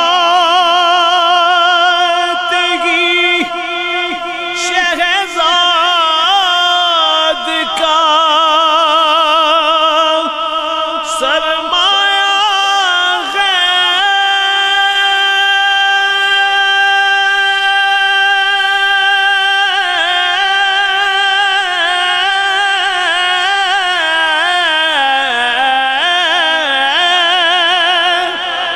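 A man singing a devotional Urdu-Punjabi poem (a kalam, naat-style) unaccompanied, drawing out long ornamented notes with heavy vibrato. In the middle he holds one note steady for several seconds, and near the end his voice slides down in pitch.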